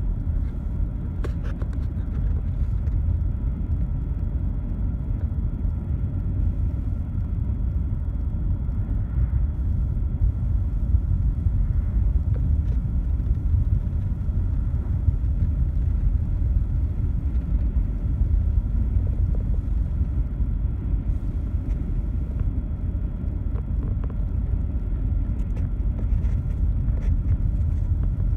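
Steady low road rumble of a car driving, heard from inside its cabin.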